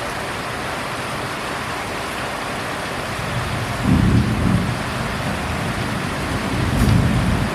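Heavy rain falling steadily, with two short low rumbles of thunder, one about four seconds in and another about seven seconds in.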